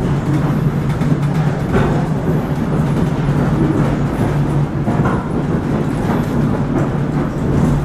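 Interior running noise of an ER2 electric multiple unit passenger car under way: a steady rumble with a low hum, and a few brief knocks and rattles from the car body.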